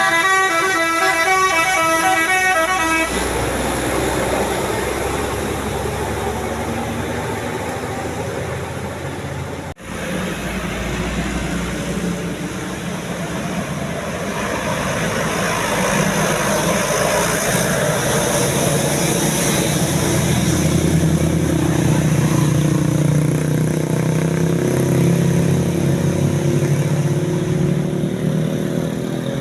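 Multi-tone telolet air horn on a tour bus playing a quick stepped melody for about three seconds, then the rumble of the bus engine and road noise. After a cut about ten seconds in, a bus engine runs on and rises in pitch near the end as it pulls away.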